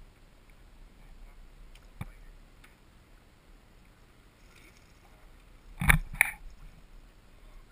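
A hooked smallmouth bass splashing at the surface beside an aluminum boat as it is brought in: two loud, sharp splashes in quick succession about six seconds in, with a single faint click about two seconds in.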